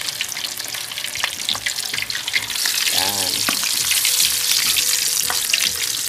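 Slab of pork belly deep-frying in hot oil in an aluminium pan: a steady sizzle thick with small crackles and pops, growing louder about halfway through, while a metal spoon stirs the oil. This is the first fry, cooking the pork partway before a second fry crisps the skin.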